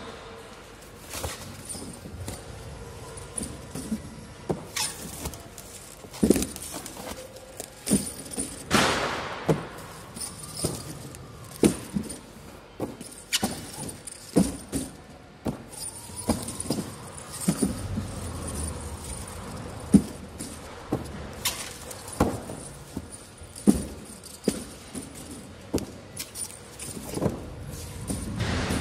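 Plastic bottles in shrink-wrapped multipacks being handled as price tags are hung on their necks: irregular sharp clicks and knocks with crinkling of the plastic film, over a steady low background hum.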